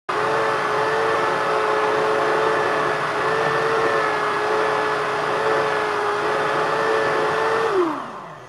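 Electric drill fitted with a sanding disc, running with a steady whine and a hiss as a wooden knife handle is sanded against it. Near the end the drill is switched off and its whine falls in pitch as it winds down.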